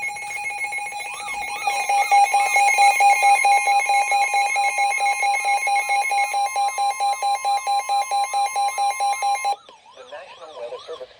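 Emergency Alert System attention tones announcing a National Weather Service severe thunderstorm warning: a steady high alert tone with a rapidly pulsing beep over it. They cut off suddenly about nine and a half seconds in, leaving fainter warbling sounds.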